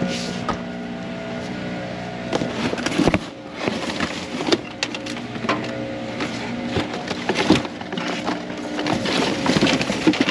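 Cardboard boxes and plastic packaging rustling, crackling and knocking as they are lifted and shifted by hand in a dumpster, in irregular clicks and crunches. A steady hum of several held tones runs underneath for most of it and fades out near the end.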